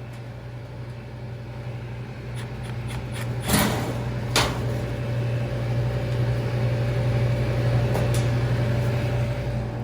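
Refrigeration unit running with a steady low hum that grows slightly louder. Two sharp clicks come about a third and halfway through, with a few fainter ticks.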